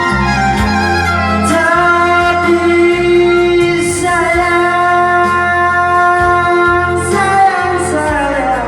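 Music between the sung lines of a slow song: long held melody notes over a low bass line.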